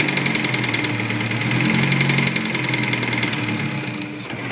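Honda S2000's F20C1 four-cylinder engine running with a rapid, regular rod knock: the number-two connecting-rod bearing has spun.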